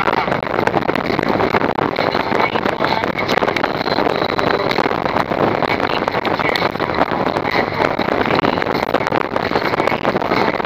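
Loud wind buffeting the microphone of a motorcycle cruising at highway speed, with the bike's engine running underneath.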